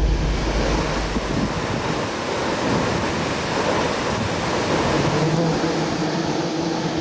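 Steady rushing of a waterfall pouring down the cliff face, with a faint low hum coming in about five seconds in.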